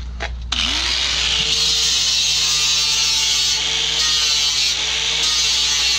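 Electric angle grinder with an abrasive disc grinding down the weld seam on a steel car fender. It starts about half a second in, its pitch climbing briefly as it spins up, then runs steadily against the metal.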